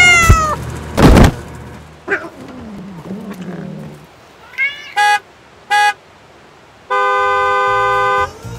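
A cat meows, then comes a loud thump about a second in. Near the end a car horn sounds, two short toots followed by one long honk of over a second.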